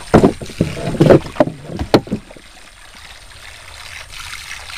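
Several sudden knocks and thumps against a small boat's hull in the first two seconds, then a soft, steady rushing of water or wind.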